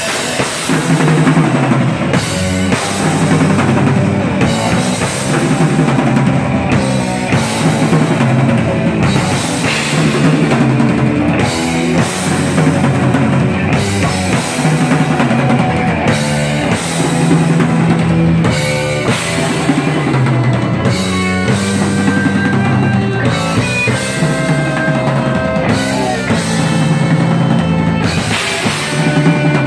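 Live rock band playing at full volume: a drum kit with bass drum and cymbals, electric bass and electric guitars driving a steady repeating riff.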